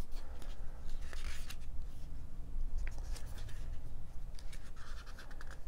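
Glossy booklet pages being turned and handled by hand: soft paper rustling with a few light flicks.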